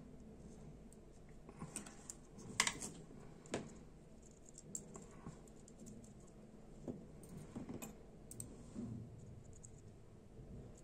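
Faint, scattered small clicks and taps of metal tweezers against the tiny parts of a Dupont Minijet lighter as a valve is worked into its gas-tank body. The sharpest click comes about two and a half seconds in.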